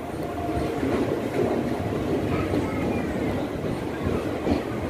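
Express passenger train running through a station, heard from aboard a coach: a steady rumble of wheels on the rails with faint clicks over the joints.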